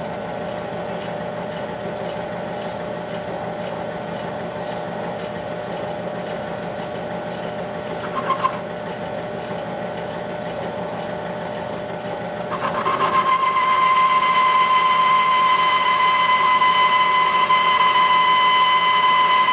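South Bend 10-inch lathe running, with a boring tool cutting inside the bore of a cast steel tractor governor arm held in a four-jaw chuck. A steady machine hum; about twelve seconds in a steady high whine sets in and the sound gets louder.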